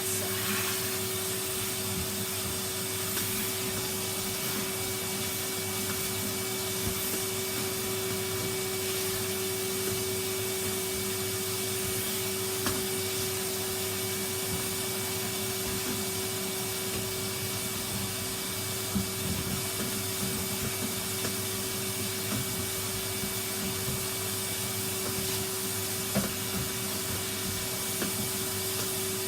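Numatic 'Henry' cylinder vacuum cleaner running steadily with a constant hum, a few light knocks sounding now and then.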